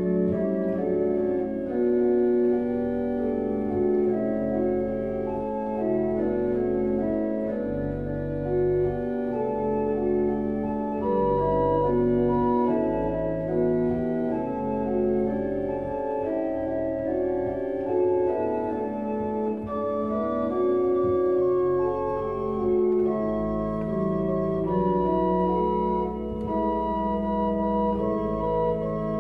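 Organ music: slow, held chords over a bass line that moves from note to note.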